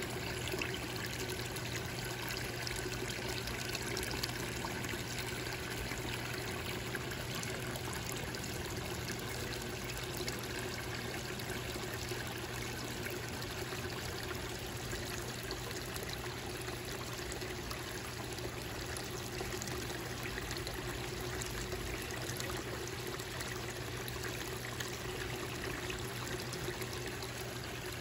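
Water from a small koi-pond waterfall spilling over rocks into the pond, a steady trickling and splashing that never changes.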